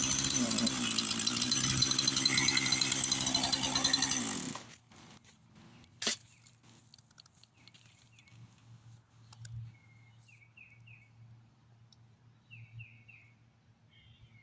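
Chainsaw running, then shut off about four seconds in, its pitch dropping as it winds down. Afterwards a squirrel barks faintly in short runs of three chirpy calls.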